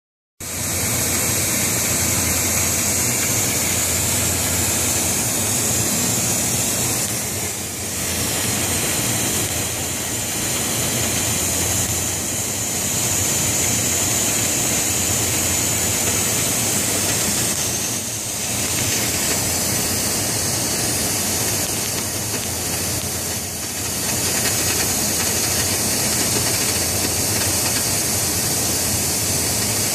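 Oxy-fuel cutting torch on a Buggo portable rail-mounted flame cutter, hissing steadily as it cuts through steel plate, with a low steady rumble beneath the bright hiss. The sound dips slightly a few times and comes straight back.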